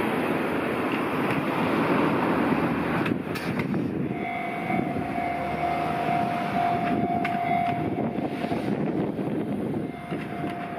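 Freight train hauled by a DD51 diesel-hydraulic locomotive running through the yard: a dense rushing noise at first, then from about four seconds in a steady whine over the rumble, which drops away near eight seconds and returns near the end.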